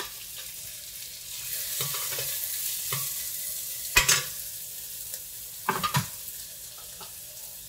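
Chopped onions sizzling in hot oil in a pressure cooker pan, stirred with a perforated steel ladle that knocks against the pot a few times, loudest about four seconds in and again near six seconds.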